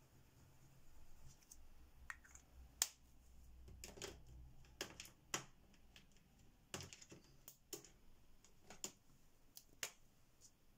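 Irregular light clicks and taps of plastic-barrelled gel crayons being handled, one put down and the next picked up, with the loudest click about three seconds in.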